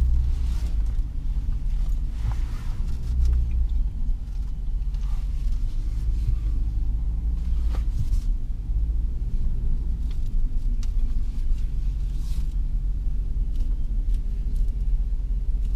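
Vehicle engine and road rumble while driving: a steady low drone with a few faint knocks and rattles.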